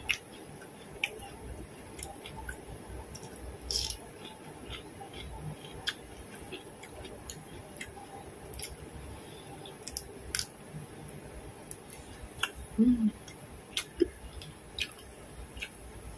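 Close-up eating sounds: chewing with scattered crisp clicks and wet mouth smacks as raw cucumber and grilled pigeon are eaten by hand. A short low hummed 'mm' comes about thirteen seconds in and is the loudest sound.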